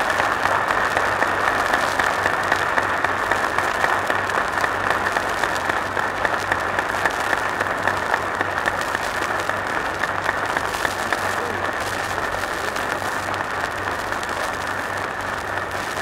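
Audience applauding at length, dense clapping that is strongest at first and slowly dies down toward the end. Heard on an old recording that sounds dull and muffled, with a steady low hum underneath.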